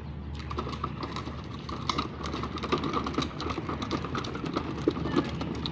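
Plastic wheels of a child's push-along ride-on toy car rolling over a concrete path: a dense, irregular clatter of small clicks that starts about a third of a second in.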